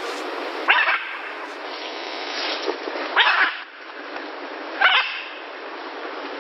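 An animal giving three short, high-pitched yelping calls, spaced a second or two apart, over a steady background hiss.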